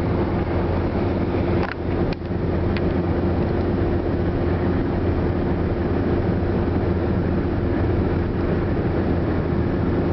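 Steady road and engine noise inside a car's cabin at autobahn speed: a low drone with a steady hum over it. A couple of brief clicks come about two seconds in.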